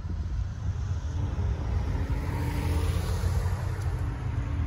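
Jeep SUV driving past close by, its tyre and engine noise swelling to a peak about three seconds in, over a steady low rumble.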